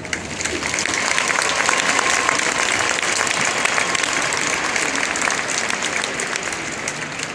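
Audience applauding a marching band's performance in a large stadium: a dense wash of clapping that swells over the first couple of seconds and then slowly fades.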